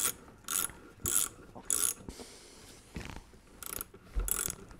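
Hand ratchet clicking in short bursts, about one stroke every half second, as a nut is tightened down on a battery cable terminal. The strokes pause for a second or so in the middle, then resume near the end.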